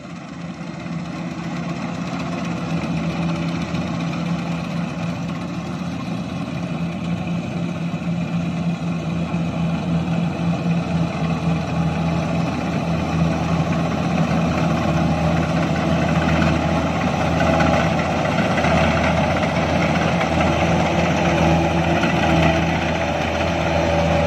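Diesel engine of a Kubota combine harvester running steadily while it cuts rice, with a steady hum and machinery noise that gradually get louder.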